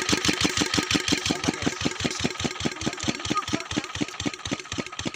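An engine running steadily with a fast, even pulsing beat.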